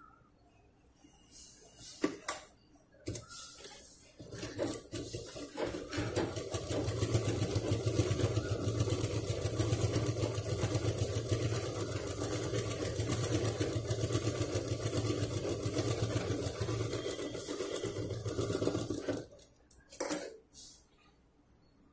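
Domestic sewing machine stitching a seam through layered pouch fabric: it starts about four seconds in and runs with a steady, rapid, even clatter and hum, stopping a few seconds before the end. A few light handling clicks come before it starts and just after it stops.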